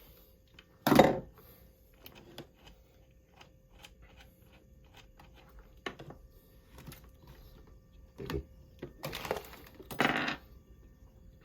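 Handling noise from fitting battery parts and wiring into a battery box: scattered knocks and clatters, one loud knock about a second in and a run of louder knocks near the end.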